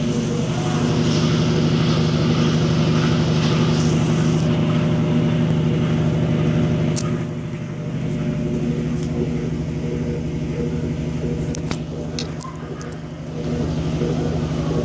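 Continental Evolution automatic washing machine running a wash cycle on a load of rugs. Its motor hums steadily with the swish of the agitated load over it, easing off briefly twice, about halfway through and again near the end.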